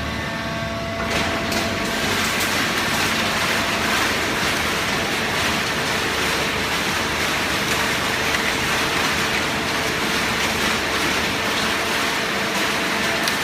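Machinery running with a steady, loud hiss that sets in about a second in.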